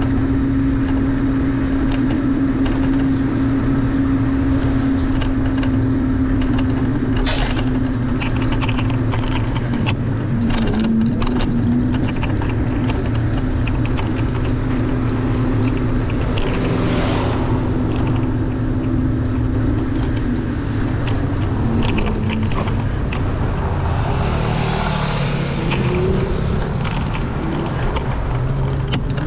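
Car engine running at low city speed with tyre and road noise. The steady engine hum dips in pitch a couple of times and rises near the end as the car speeds up.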